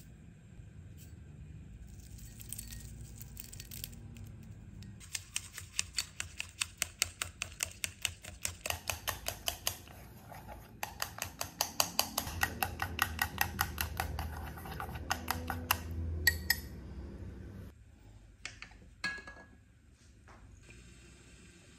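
Chopsticks beating egg in a ceramic bowl: a fast, even clicking of the sticks against the bowl, about four or five taps a second, that stops about sixteen seconds in. A few separate knocks follow.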